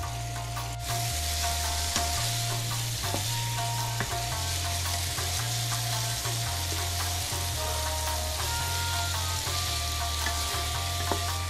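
Tofu sizzling in oil in a frying pan as it is stir-fried and turned with a wooden spatula; the sizzle grows louder about a second in. Background music with a plodding bass line plays throughout.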